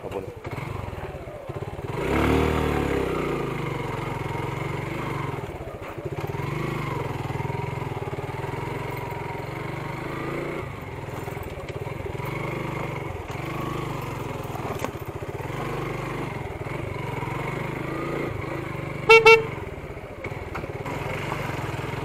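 Motorcycle engine running under way. It revs up loudly about two seconds in, its pitch falls away, and then it runs on steadily, rising and falling slightly. Near the end a horn gives two quick beeps.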